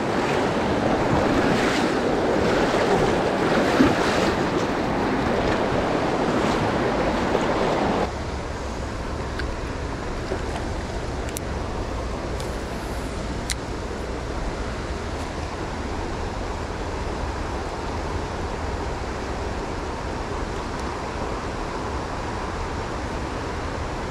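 Rain-swollen river rushing through rapids, a steady noise of water that drops suddenly to a quieter rush about eight seconds in.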